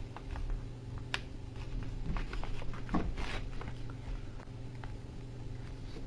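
A sheet of paper being handled and folded by hand: scattered small crackles and taps as it is pressed and creased, with one sharp crack about a second in and a brief crinkling rustle around three seconds. A steady low hum runs underneath.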